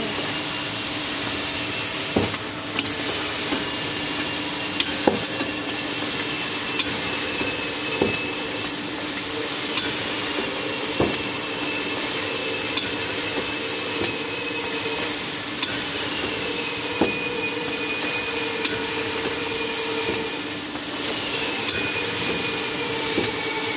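Band saw cutting machine for jumbo tissue rolls running: a steady hiss and hum with a sharp knock about every three seconds. A high whine sets in and slowly falls in pitch about every six seconds.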